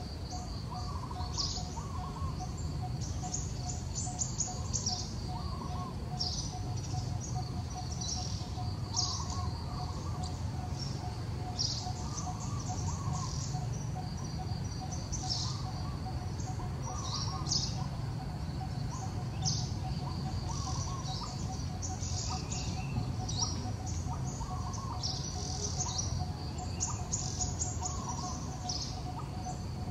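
Small birds chirping and twittering in short, repeated high calls, over a steady, rapidly pulsing lower tone and low background noise.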